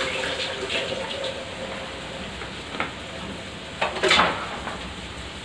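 Steady sizzling of food frying in a wok, with a few light clicks and a louder clatter of kitchen utensils about four seconds in.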